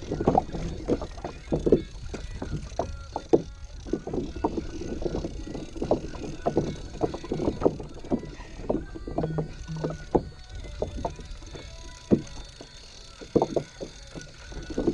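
Small waves slapping against the hull of a Hobie Compass fishing kayak: many short, irregular knocks over a steady low rumble of wind and water.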